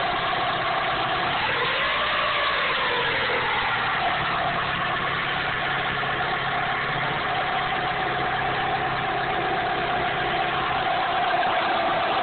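1998 Dodge Neon's 2.0L DOHC four-cylinder engine running with a steady high whine. About two seconds in it is revved briefly and the whine rises and falls in pitch with it. The owner suspects the water pump.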